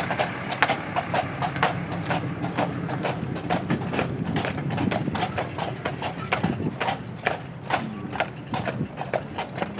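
Clydesdale draft horses pulling a carriage, their hooves clip-clopping on a paved road in a quick, steady run of hoofbeats, several a second.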